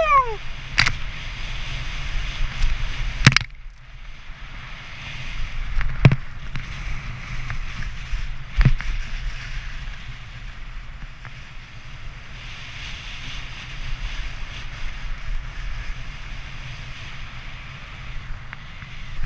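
Skis running fast over groomed, packed snow with wind buffeting a helmet-mounted action camera, a steady rushing noise with a low rumble, louder for the first few seconds. A few sharp knocks break in about 1, 3, 6 and 9 seconds in.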